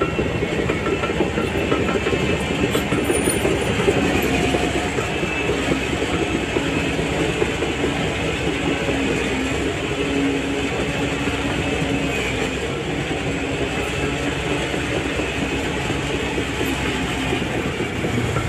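SHANTUI DH17C3 crawler bulldozer working, its diesel engine running steadily under the clanking and rattling of its steel tracks.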